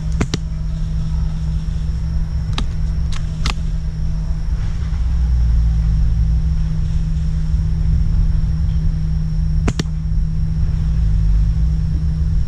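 A steady low rumble on the microphone, with a faint high whine and a few short sharp clicks; the loudest click comes about ten seconds in.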